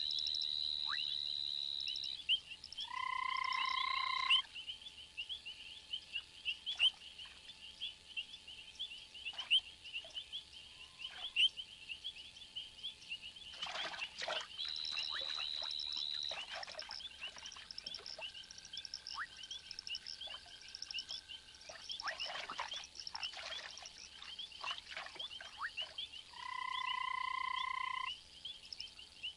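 Chorus of frogs calling at a pond: a fast, continuous run of high clicking calls, long steady high-pitched notes lasting a couple of seconds, and twice a held two-toned note.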